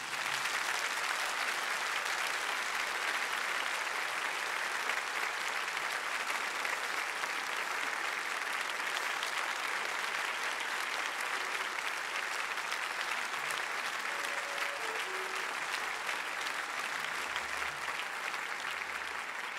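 A large hall audience applauding: dense, steady clapping that eases off slightly near the end.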